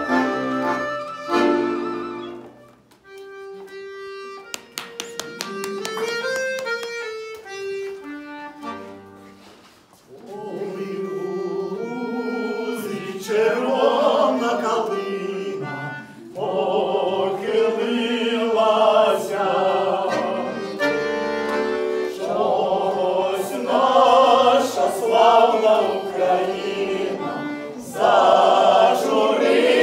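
A tune on wooden folk flutes ends, then a button accordion (bayan) plays quiet held notes. From about ten seconds in, a man and a woman sing a folk-style song with the accordion.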